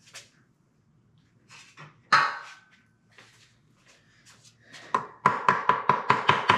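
Hammer tapping on a 1939 Ford transmission to work a stuck part loose. A few light clinks come first, then one sharp ringing metal strike about two seconds in, then a quick run of taps, about five a second, near the end.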